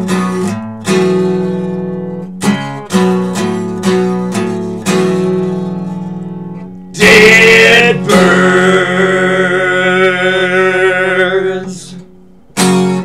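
Acoustic guitar strummed in even chord strokes to close the song, then one loud strummed chord about seven seconds in that rings out for several seconds and fades, and a short final chord stab near the end.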